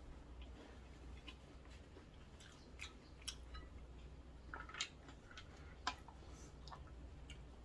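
Quiet eating sounds: soft chewing and mouth noises with scattered sharp clicks of a wooden spoon against a stainless steel pot of noodle soup, the loudest clicks about five and six seconds in.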